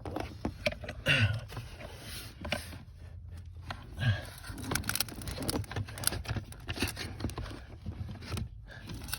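Irregular small clicks, knocks and scraping of hands and tools handling parts under a car dashboard, with a couple of short, faint murmurs from the worker about one and four seconds in.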